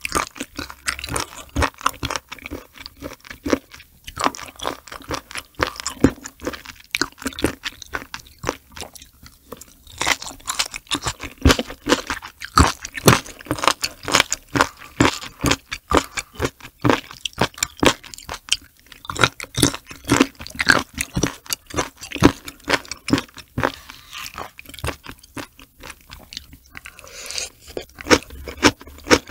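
Close-miked wet, crunchy chewing of raw sea cucumber and its roe, a quick run of sharp clicks and crunches. Near the end the sound turns smoother as a long strand of roe is slurped in.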